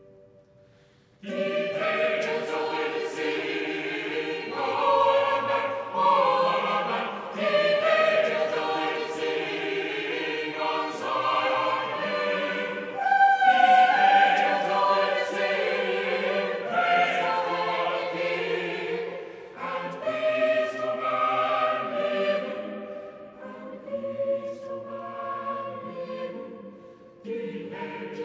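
Background music of a choir singing slow, held chords, starting about a second in after a moment of near silence.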